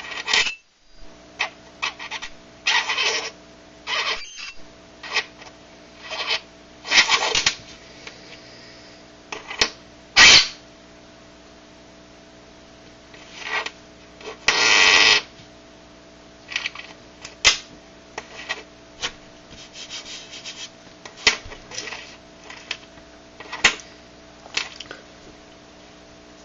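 Metal coin against dry ice, buzzing and squealing in irregular bursts, some brief and a few lasting about a second. The warm metal makes the dry ice turn to gas, and the escaping gas makes the coin vibrate against the ice.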